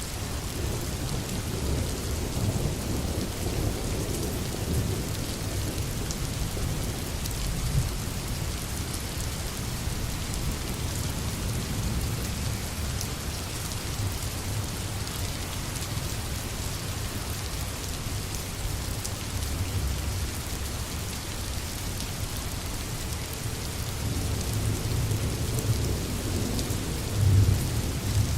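Steady heavy rain hissing, under a low rolling rumble of thunder that swells louder near the end.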